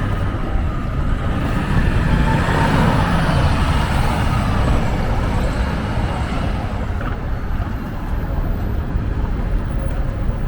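Road vehicle noise: a motor vehicle's engine and tyres running steadily, growing louder about two seconds in and easing off after about five seconds.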